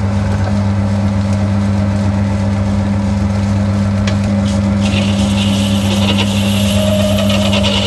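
Boxford metal lathe running steadily under power, its motor and gearing giving a strong low hum. From about five seconds in, a hissing scrape is added as the cutting tool faces off the end of a metal slug.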